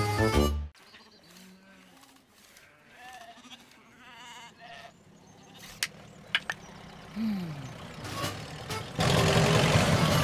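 Animated sheep bleating softly, short calls that dip in pitch, with a few sharp clicks between them; a music sting cuts off in the first second. About nine seconds in, a loud, steady noise comes in.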